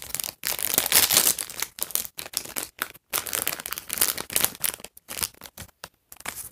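A small packaging bag from a toy blind-box unboxing being torn open and crinkled by hand, in irregular bursts of crinkling that thin out near the end.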